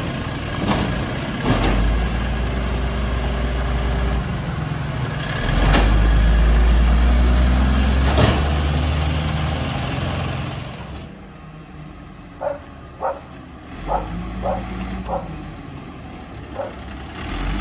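1996 Volvo WXLL garbage truck running hard to power its Amrep Octo packer: a loud, steady low engine drone with several sharp clanks as the blade compacts the load. About eleven seconds in it turns much quieter, the truck idling farther off with a handful of short, sharp sounds at uneven intervals, and the engine swells again near the end.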